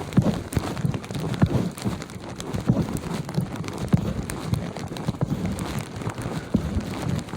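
Footsteps tramping through snow, each step a soft, dull crunch, about one or two steps a second.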